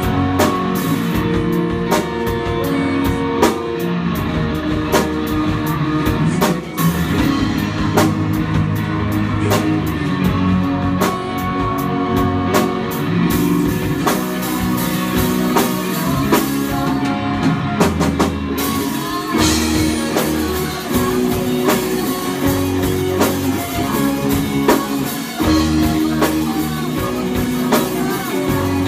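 A rock band playing live: two electric guitars over a drum kit, with steady drum hits. About two-thirds of the way in the cymbals ring more continuously.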